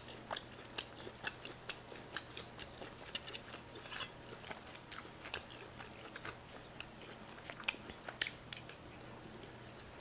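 Close-up chewing and eating sounds of a person eating skirt steak by hand: many small irregular mouth clicks and smacks.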